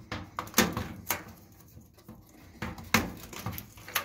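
Sharp plastic clicks and knocks from pulling wiring-harness connectors off a dryer's electronic control board, about four distinct clicks with lighter handling noise between, the loudest about three seconds in.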